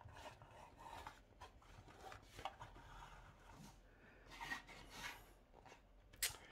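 Faint handling noises: light rubbing and small clicks, with one sharper click about six seconds in.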